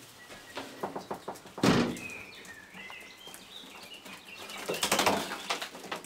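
Quails in a wood-chip pen giving short, soft chirping calls amid rustling and scratching, with a loud thump about two seconds in and a burst of scuffling near the end.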